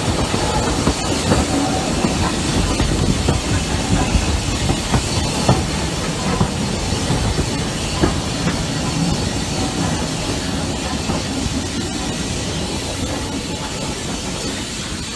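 Steam train running slowly into a station, its wheels rumbling and clattering over the rail joints, with a hiss of steam; the sound eases off slightly near the end.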